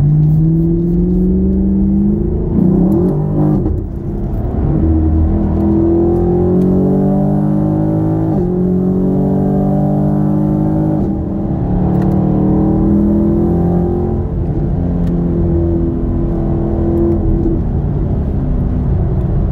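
2016 Chevrolet Camaro SS's 6.2-litre V8 and exhaust heard from inside the cabin at highway speed. The engine note climbs in pitch and falls back several times.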